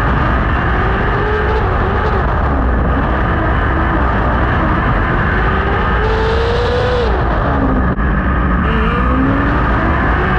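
600cc micro sprint car's motorcycle engine at racing speed, heard onboard: its pitch climbs as the car accelerates, drops sharply about seven seconds in as it lifts for a corner, then climbs again, over a heavy rumble. A brief hiss about six seconds in.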